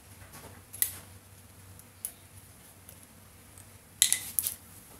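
Metal parts of a vintage Miller Falls hand drill clicking and clinking as its crank arm is worked loose and lifted off: a sharp click about a second in, a lighter one at two seconds, and a quick run of clinks about four seconds in, the loudest.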